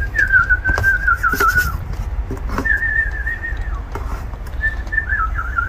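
A person whistling three short phrases, each a high held note that slides down with a wavering trill, a second or so apart.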